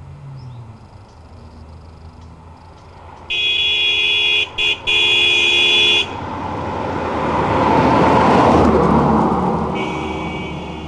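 A car horn blown loud and long, with two brief breaks, as the car approaches. The car then passes close by, its engine and tyres rising to a peak and fading. Near the end a second horn starts sounding steadily as a motorcycle approaches.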